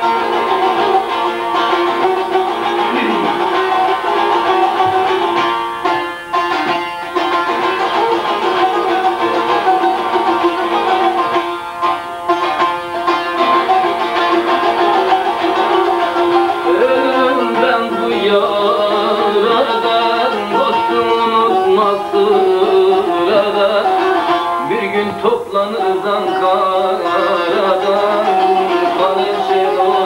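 Bağlama (Turkish long-necked saz) being played: a plucked melody over a steady droning note.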